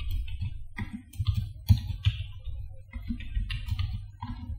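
Computer keyboard typing: irregular key clicks at an uneven pace, over a steady low hum.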